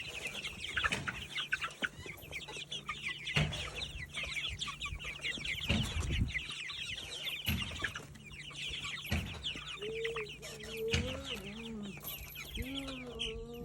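A flock of chickens clucking and chirping, a dense constant chatter of short high calls, with louder, lower wavering calls joining from about ten seconds in and a few dull knocks along the way.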